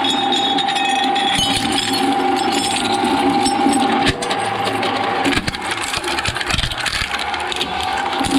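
Shredder machine running with a steady whine under constant clattering and cracking as material is chewed up. In the middle the whine drops away while heavier knocks come, and it returns near the end.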